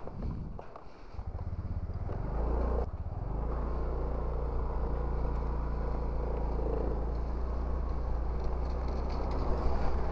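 Motorcycle engine pulling away and then running at a steady drone as the bike is ridden. There is a short dip and change in pitch about three seconds in.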